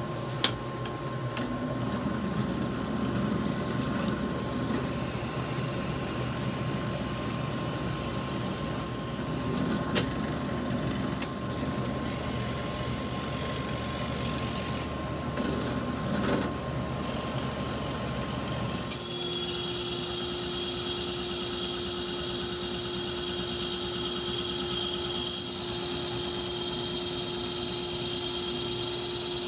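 A drill press running and boring holes in wooden frame parts, with a dust-collection hose on the bit. About two-thirds of the way through it gives way abruptly to a band saw running, louder and with a high whine.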